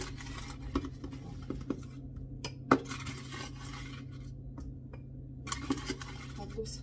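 A metal spoon scraping and tapping against a plastic container while scooping flour, with a few sharp clinks, the loudest just under three seconds in, over a faint steady hum.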